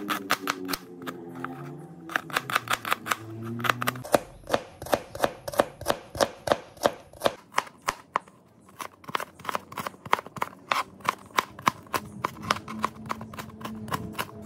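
Knife chopping shallots and garlic on a plastic cutting board: a quick, even run of sharp taps, about four a second, with a short pause a little past the middle.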